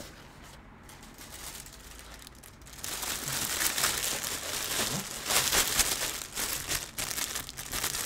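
Clear plastic packaging bag crinkling and crackling as it is handled and worked open. It starts soft and becomes louder and busier about three seconds in.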